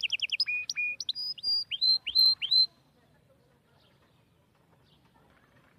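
A bird singing: a fast trill, then a string of clear whistled notes that slide sharply in pitch. The song stops about two and a half seconds in.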